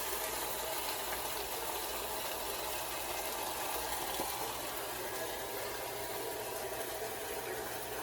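Steady low mains-type hum under an even background hiss, unchanging throughout, with no distinct knocks or clatter.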